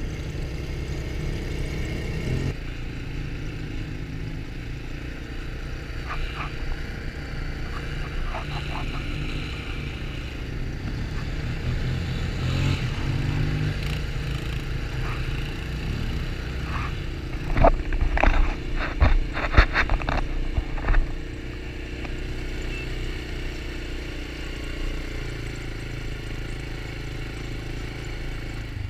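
Can-Am quad bike engine running steadily as it rides over sand. From about 17 to 21 seconds in, a quick run of sharp knocks and rattles is louder than the engine.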